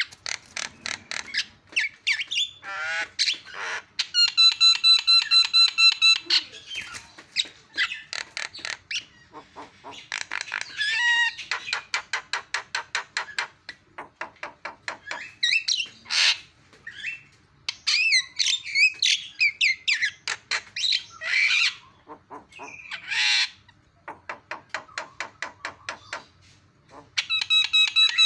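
Javan myna singing a long, varied song: fast clicking rattles, harsh squawks and sliding whistled notes. A buzzy, evenly pulsed note comes about four seconds in and again at the end.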